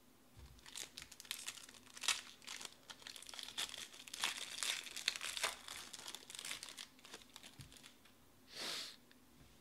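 Foil wrapper of a 2020 Topps Museum Collection baseball card pack being torn open and crumpled by hand: several seconds of dense crinkling and crackling, then a short swish near the end.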